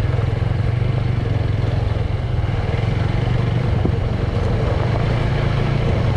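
Motorcycle engine running at a steady, even speed.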